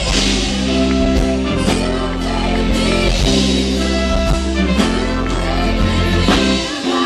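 Rock song with a singer over drums and a steady bass line, played loud; the low bass drops away near the end.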